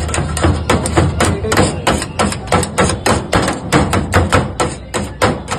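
Cleaver chopping shawarma chicken on a steel counter: rapid, even knocks, about four to five a second.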